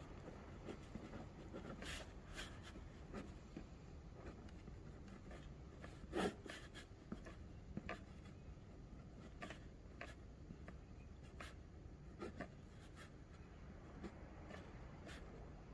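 Pen writing and sketching on paper: faint, scattered scratching strokes, with one sharper tap about six seconds in.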